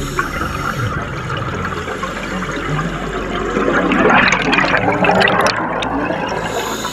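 Scuba regulator exhaust bubbles gurgling and rushing past an underwater camera, swelling to a loud surge about three and a half seconds in and fading near the end.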